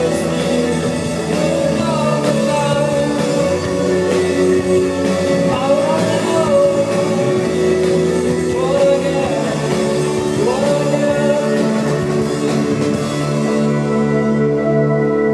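Live rock band playing loud, with electric guitars holding sustained tones over drums and cymbals. Near the end the drums and cymbals drop out, leaving the guitar tones ringing.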